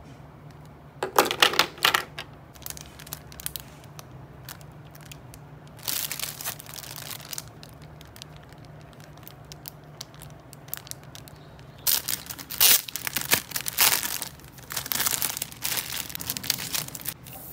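Thin clear plastic packaging around a set of fine paintbrushes crinkling as it is handled. It comes in bursts: briefly about a second in, again around six seconds, and in a longer run of crinkles near the end.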